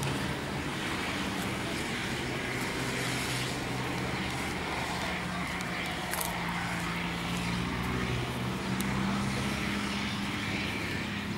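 Steady low motor hum, with a few wavering low tones, under a hiss of outdoor background noise.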